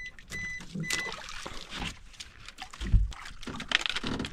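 Water sloshing against a small wooden outrigger boat, with clicks and scrapes of a handline being handled. A string of short, high electronic beeps runs through the first second, and there is one dull thump about three seconds in.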